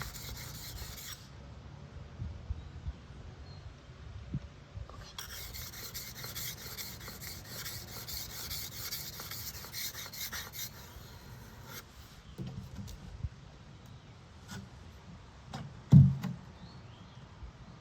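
Steel blade being stroked back and forth on the fine side of a wet sharpening stone, a rasping scrape that is strongest for a run of strokes in the middle and quieter before and after. A dull thump near the end.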